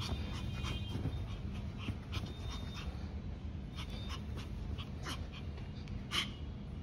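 Excited Pomeranian panting, with short high whines and yips scattered through.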